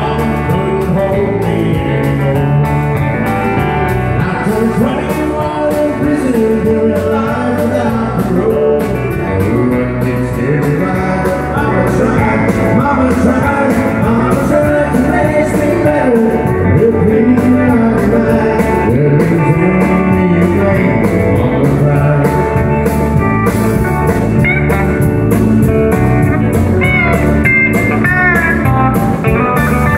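Live country band playing, with a man singing lead over acoustic and electric guitars, keyboard and drums. Near the end, the electric guitar plays bending lead lines.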